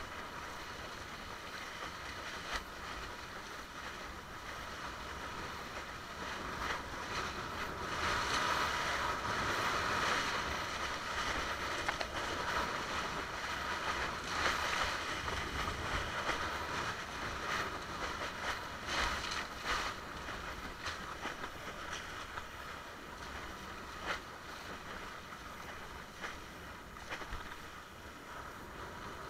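Water rushing and splashing past a longboard windsurf board under sail, mixed with wind noise. It grows louder for several seconds in the middle, then settles back.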